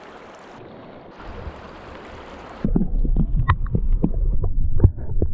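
Steady hiss of rushing stream water, which about two and a half seconds in switches abruptly to the muffled low rumble and irregular clicks and pops of a camera submerged in the stream.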